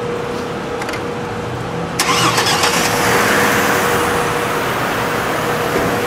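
Chevrolet Trailblazer's 4.2-litre inline-six being started: it catches about two seconds in and runs on steadily at idle. The engine has a misfire, which the scan tool counts on cylinder 2 during an ignition-coil swap test.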